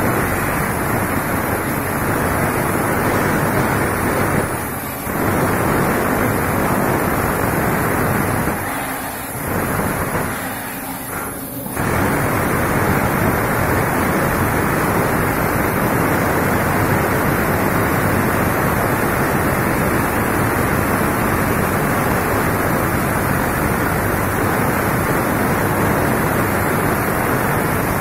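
Two handheld electric demolition hammers chiselling into a concrete block, a loud steady din that dips briefly three times in the first half as the tools pause, then runs on unbroken.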